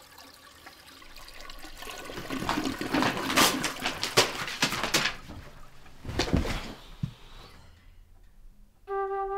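Paper and packing material rustling and crackling as it is pulled from a cardboard box and tossed aside, with a soft thump about six seconds in. Flute music begins near the end.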